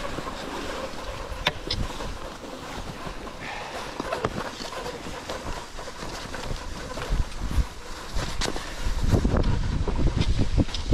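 Cross-country skis sliding over snow, with scattered sharp clicks of ski poles, and a low wind rumble on the microphone from about nine seconds in.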